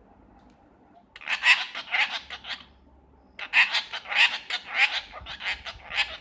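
Pet parrot calling in two bouts of quickly repeated short notes, about six a second. The first bout lasts about a second and a half; the second starts a moment later and runs longer.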